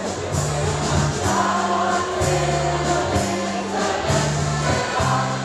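Mixed choir singing a Dutch song, accompanied by a small band with accordion and drums over a steady bass line that moves in long held notes, with drum or cymbal strokes at a regular beat.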